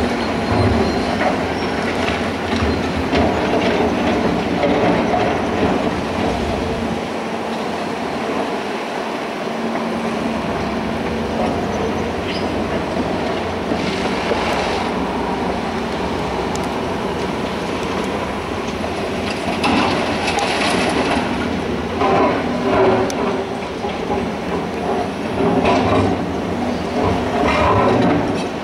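Volvo crawler excavator's diesel engine running steadily while its steel bucket scrapes and clatters through broken rock, with bursts of rock clatter, more frequent in the second half, as it loads rock into a dump truck.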